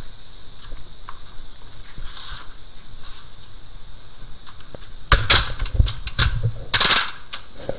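Steady hiss, then, about five seconds in, two seconds of loud rubbing, scraping and knocking as clothing brushes over a body-worn camera's microphone while its wearer walks.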